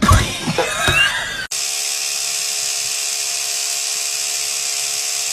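Brief voice-like sounds give way, about a second and a half in, to an abrupt steady whirr of a small electric motor that runs on evenly.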